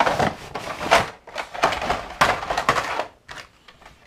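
Cardboard box being opened and tipped out, blister-carded diecast toy cars sliding and clattering onto the table in a dense crackling rattle for about three seconds, followed by a few lighter taps as the packs are spread out.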